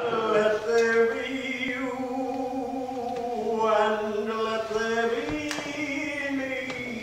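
A woman singing long, held notes that step up and down between a few pitches.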